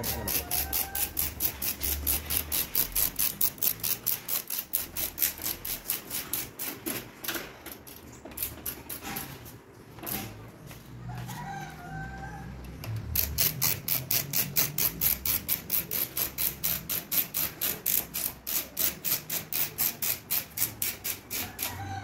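Taparia hand ratchet screwdriver clicking steadily, about four clicks a second, as screws are driven into a cylindrical door lock's mounting plate. The clicking stops for a few seconds about a third of the way in, then picks up again.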